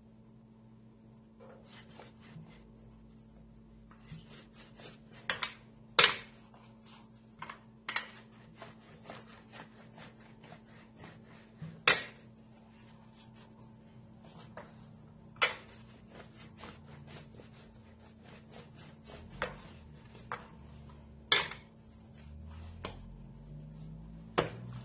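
White plastic rolling pin working bread dough on a hard countertop: quiet rubbing and rolling, broken by several sharp knocks as the pin is set down on or bumped against the counter.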